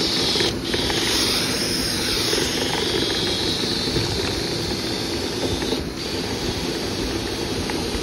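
Dryer vent cleaning equipment running steadily: a motor's rumble with air rushing through, the hiss shifting up and down in pitch.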